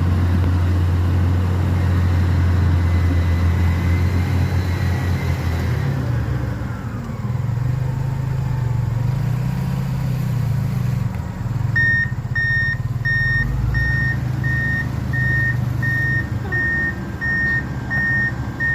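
A heavy vehicle's engine running, its pitch rising and falling for a few seconds midway. Past the middle a reversing alarm starts beeping evenly, about one and a half beeps a second.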